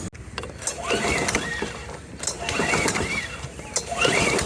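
Push mower's recoil starter rope pulled three times, about a second and a half apart, each pull whirring up and back down in pitch as the engine turns over. The spark plug is out with a compression gauge screwed in, so the engine cranks for a compression test and does not fire.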